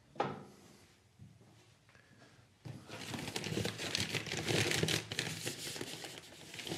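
A single sharp knock, then from about three seconds in a dense crinkling and rustling of a bag or packaging being handled and opened.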